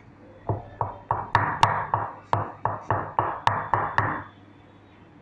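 Cleaver chopping on a cutting board: about a dozen quick, even strikes, roughly three a second, each with a short ring, stopping about four seconds in.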